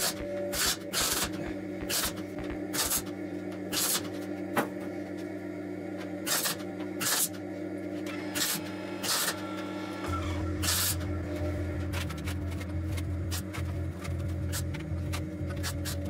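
MIG welder tack-welding sheet steel: a dozen or so short crackling bursts at irregular intervals, one per tack, over steady background music.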